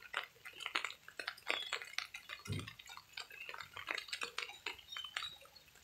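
Rainwater dripping: irregular small drops, several a second, with a soft low thump about two and a half seconds in.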